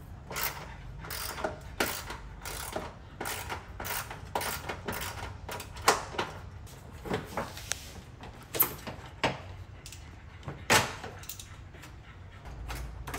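Irregular clicks, knocks and rattles of hands and a hand tool on an aftermarket cold air intake with a cone filter, as its tube and hose clamps are worked loose to pull it out of the engine bay.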